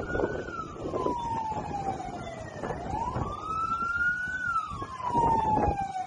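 Emergency vehicle siren wailing: its pitch climbs quickly and then falls slowly, in two full cycles.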